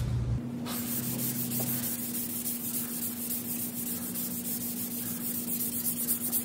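Hand block sanding of urethane primer on a truck's steel cab roof with 180-grit paper on a long sanding board: a steady scratchy rasping that starts about half a second in. A faint steady hum runs underneath.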